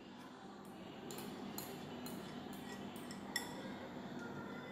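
A metal spoon tapping and scraping against a glass jar and a bowl while thick yogurt is scooped in, giving a string of faint light clinks with one sharper clink about three and a half seconds in.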